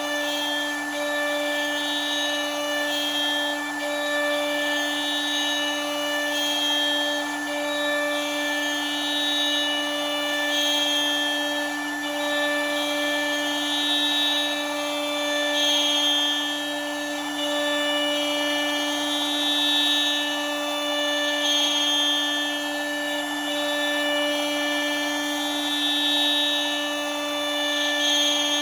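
CNC router spindle running with a steady high whine, while fainter higher tones from the machine come and go every second or two as it works.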